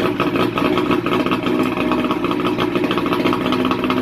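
1973 Evinrude 65 hp two-stroke outboard idling steadily on a hose-fed flusher, out of the water.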